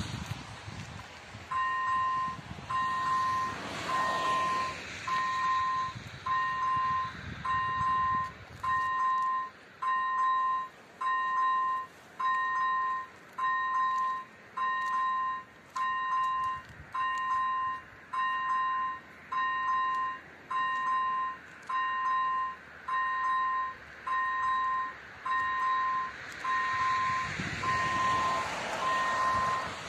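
Electronic bell of a Czech AŽD 97 level-crossing warning signal, a ringing electronic tone repeating about once a second. It starts a second or so in and warns of an approaching train.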